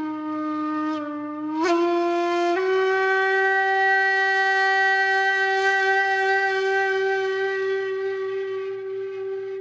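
A blown horn sounding one long note. It steps up in pitch twice in the first few seconds, then holds steady and fades a little near the end.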